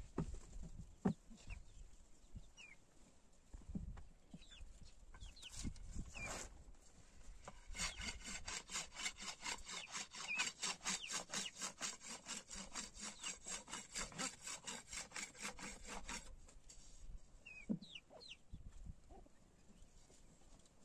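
Thin wooden rolling pin rolled quickly back and forth over flatbread dough on a board, a rhythmic rubbing of about five strokes a second that runs from about eight seconds in to about sixteen. Scattered wooden knocks come before it.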